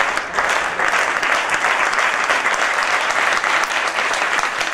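Spectators applauding, a dense, even clatter of many hands clapping, cheering on a long jumper through his run-up.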